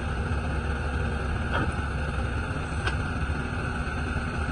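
Hyundai R210W-7 wheeled excavator's diesel engine running steadily while the hydraulic boom and arm lift the bucket, with two light knocks about a second apart midway through.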